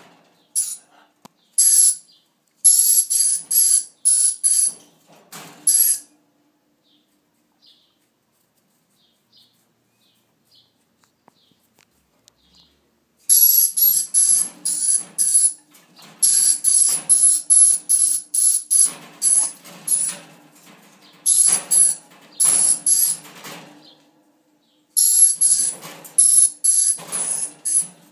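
Dusky lory giving runs of short, harsh, hissing bursts, several a second. It goes quiet for several seconds partway through, then starts again. A faint steady hum lies underneath.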